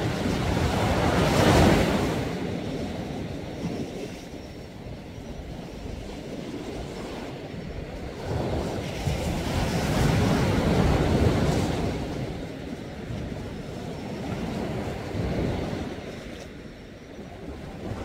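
Sea surf washing onto the shore and drawing back in slow swells. The loudest wave breaks near the start, another comes about ten seconds in, and a smaller one near the end.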